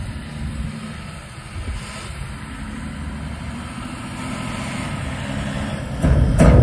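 Volvo A40G articulated dump truck's diesel engine running as the truck drives toward the listener, growing steadily louder. About six seconds in, music with heavy drum hits cuts in abruptly and is louder than the engine.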